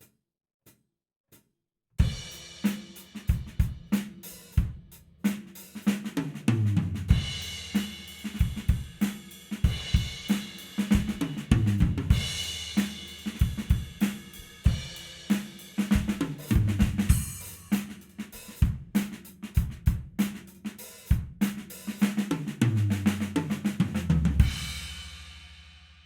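Studio-recorded acoustic drum kit: after a few faint count-in clicks, kick, snare, hi-hat and cymbals play a groove broken by tom fills, ending on a final hit that rings out and fades.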